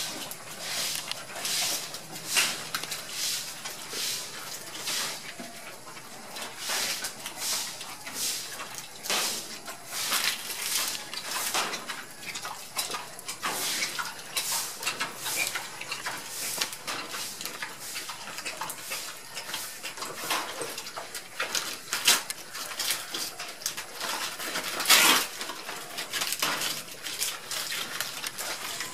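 A sow and her piglets chewing and tearing fresh banana leaves: irregular crisp crunching and leaf rustling, with one louder crunch late on.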